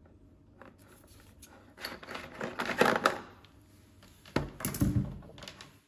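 Handling noises from an impact wrench kit's accessories being picked up and sorted: scattered clicks and rustling, a busier patch of rattling about two to three seconds in, and a dull thump with a rattle about four and a half seconds in.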